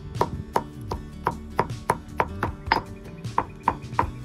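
White marble pestle pounding rose petals in a marble mortar: sharp, evenly spaced strikes about three a second, with one short pause near the end.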